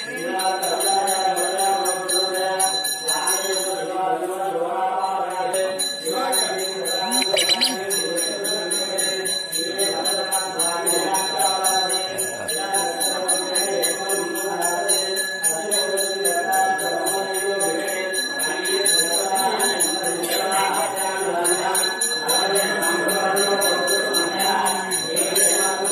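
Brass temple bell rung continuously in rapid strokes, as during the worship of an abhishekam, with mantras being chanted under it.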